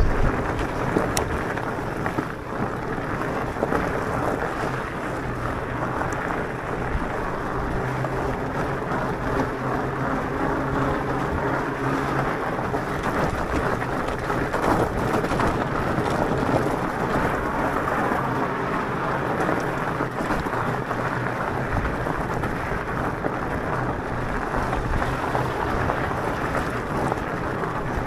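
Mountain-bike tyres rolling over coarse gravel: a steady crunching rush. A faint low hum runs under it and stops about twelve seconds in.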